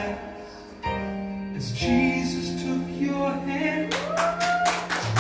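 Worship song with female singing. A short lull about a second long comes near the start, then sustained sung notes return. Near the end a steady percussive beat comes in and a voice slides upward.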